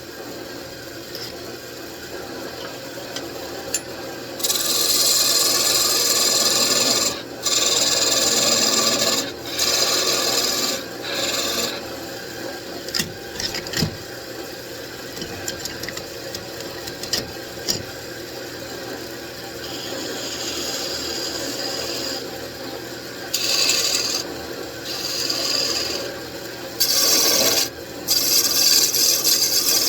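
Turning chisel cutting into a spinning mahogany table leg on a wood lathe: repeated hissing cuts lasting one to three seconds each, with short gaps between them, over the lathe's steady running. The cuts are lighter through the middle stretch.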